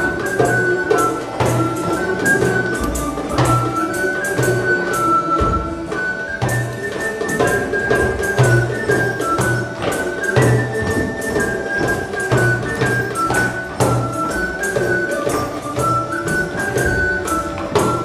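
Medieval-style dance tune on recorder and hurdy-gurdy over a steady drone, with a beaten drum and tambourine keeping the rhythm.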